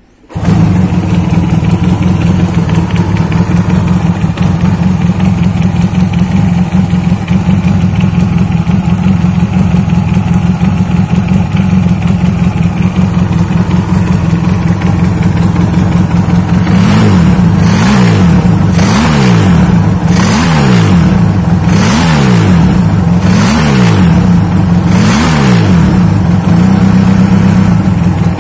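Custom double-cylinder motorcycle engine built from Honda Astrea Grand parts, running loudly at a steady idle. In the second half it is revved in about six quick throttle blips, each rising and falling, about a second and a half apart.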